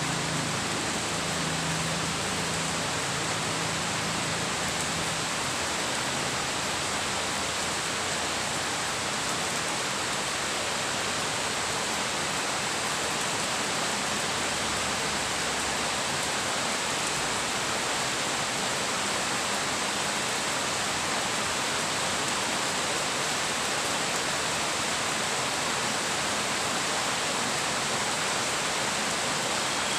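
Steady rain falling, an even, unbroken hiss of rain.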